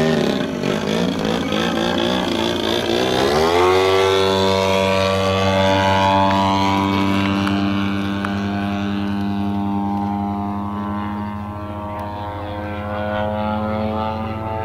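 Engine and propeller of a 35% scale Aeroworks Extra 260 radio-controlled aerobatic plane in flight. The pitch swings up and down as the throttle is worked, then climbs about three and a half seconds in and holds at high throttle, slowly falling in pitch toward the end.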